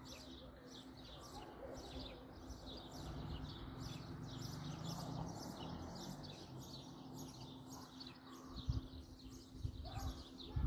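Small birds chirping rapidly and continually, over a faint steady low hum.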